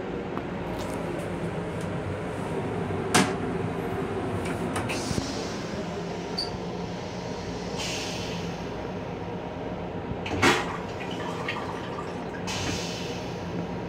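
Steady running noise of an M7 electric railcar heard inside its small restroom. A sharp clack about three seconds in comes as the toilet seat is lifted, and a louder thump follows about ten seconds in.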